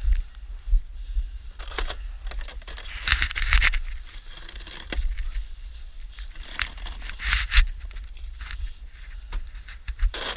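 Snow shovel scraping and pushing snow in about five separate strokes, over a steady low rumble.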